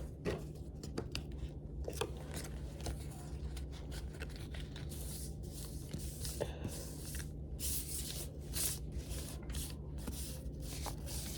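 Hands sorting and gathering Pokémon trading cards: irregular light scrapes, rustles and small taps of card stock sliding against card and table, over a steady low hum.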